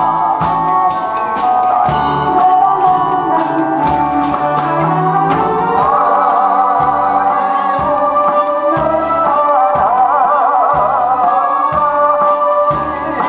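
A man singing into a microphone over amplified backing music, with a bass beat pulsing at an even pace under a wavering melody.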